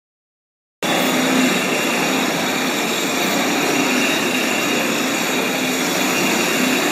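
Blastrac BG 250 concrete floor grinder running, its electric motor and grinding head giving a steady hum under a loud grinding hiss as it roughens the concrete surface. The sound starts abruptly about a second in and stays even.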